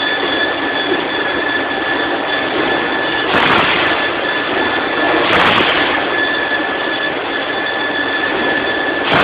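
PETRA DC300A dual-column band saw cutting through a 100 mm bar of 304 stainless steel: a steady, loud, high-pitched squealing whine of the blade in the metal. It swells briefly louder and harsher about three and a half seconds in, again about two seconds later, and once more at the end.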